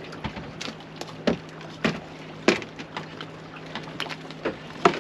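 Irregular sharp knocks and clatter from a landing net and a freshly caught bass being handled on a small boat's deck, over a steady low hum.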